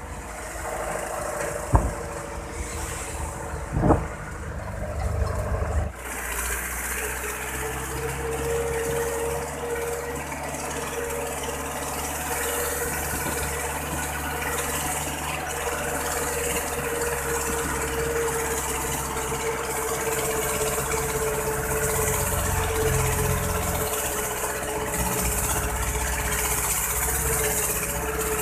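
Truck engine running as the truck drives along, heard from inside the cab, with steady road and wind noise. Two sharp knocks come in the first few seconds, and the road and wind noise gets louder about six seconds in.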